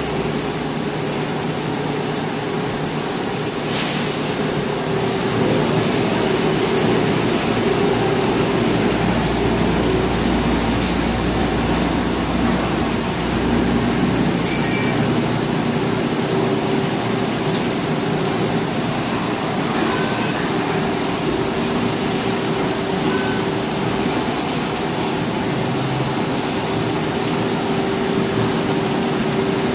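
Pickleball injection molding line running: a steady machinery noise with a constant hum, and a few faint mechanical clicks from the automated handling gear.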